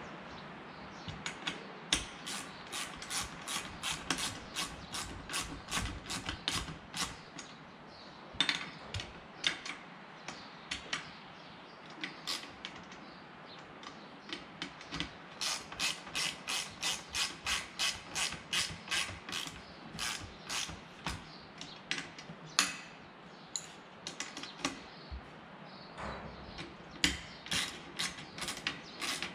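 Ratchet wrench clicking in runs of about four clicks a second, with short pauses between runs, as the bolts of a propeller hub are snugged up by hand.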